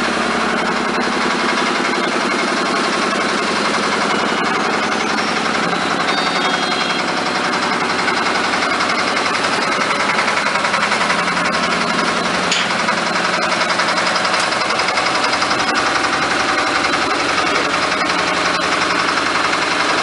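Concrete mixer machine with a hydraulic hopper, running steadily with its drum turning: a loud, even engine sound with a fast, regular pulse.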